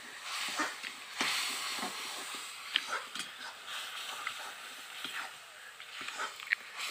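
Masala paste sizzling as it fries in a metal kadhai, with a metal ladle scraping and clinking against the pan as it is stirred.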